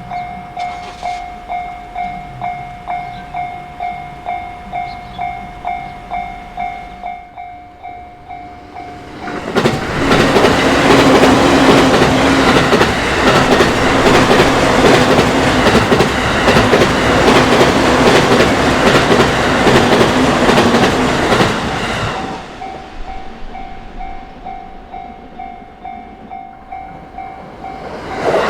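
Japanese level-crossing alarm bell ringing in a steady beat, about one and a half strikes a second. A train on the JR Narita Line then passes loudly for about twelve seconds, its wheels clattering over the rail joints. Once it has gone the bell is heard again, and a second loud train sound starts near the end.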